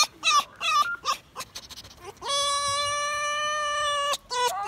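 Red fox calling: a few short calls, then one long steady call lasting nearly two seconds about halfway in, then short calls again near the end.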